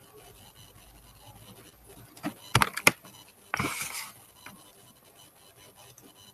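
A quick cluster of sharp clicks a little over two seconds in, followed by a short rushing noise lasting about half a second and one more faint click, against faint background hiss.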